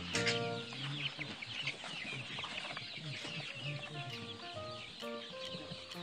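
Many young chicks peeping continuously, a dense overlapping chorus of short high cheeps. Soft background music plays underneath.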